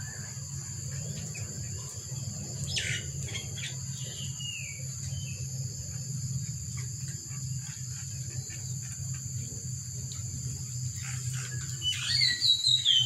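Birds chirping over a steady high-pitched insect drone: a few short chirps about three and four seconds in, and a louder burst of chirping near the end, with a low steady hum underneath.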